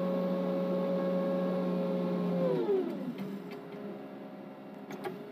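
SDLG motor grader's engine and drivetrain whining at a steady pitch, then winding down with a falling pitch about two and a half seconds in and settling into a quieter, lower hum. A few light clicks come near the end.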